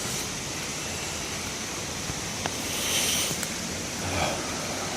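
Steady rushing of water from a creek waterfall, with a brief swell of hiss about three seconds in.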